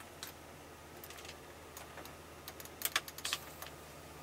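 Rotary dashboard climate-control knobs of a van being turned, clicking through their detents in a string of short ticks, busiest about three seconds in, over a steady low hum.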